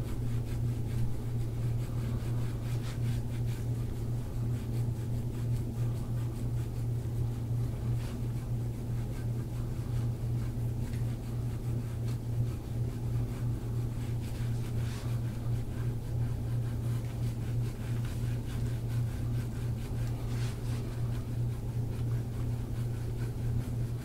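Steady low machine hum that holds at one pitch without change.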